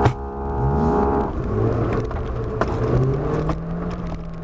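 Engine of an off-road 4x4 running, heard from inside the cab, its pitch rising steadily through the latter part as the vehicle accelerates over a rough grass trail. A few light knocks from the bumpy track.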